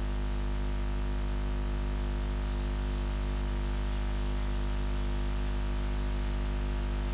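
Steady electrical hum with a constant hiss, a low drone made of several even tones, typical of mains hum picked up by the recording microphone.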